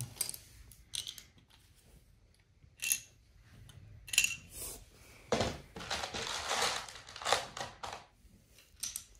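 Small toy pieces being handled and set down: scattered clicks and clacks, with a longer stretch of rustling and scraping from about five to seven and a half seconds in.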